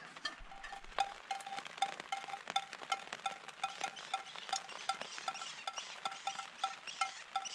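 Scattered raindrops ticking sharply and irregularly, with a short high note repeating evenly about three times a second.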